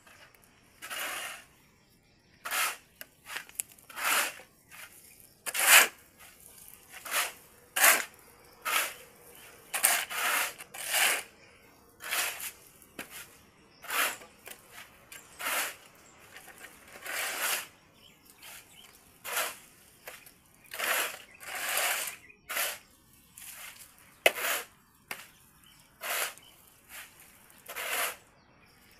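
Steel shovel blades scraping across a concrete floor and digging into a pile of gravelly cement mix as it is turned by hand: rough scrapes, roughly one a second.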